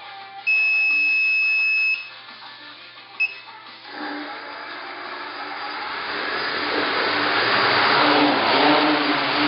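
A loud, steady electronic beep lasting about a second and a half, then a short beep: the quadcopter's arming beeps. About four seconds in, its four electric motors and propellers spin up, a whirring rush that grows steadily louder.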